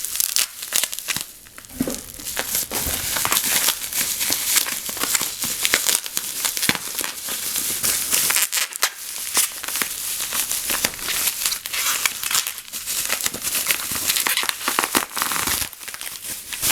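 Packing material crinkling and tearing continuously as a wrapped metal lightsaber hilt is unpacked by hand.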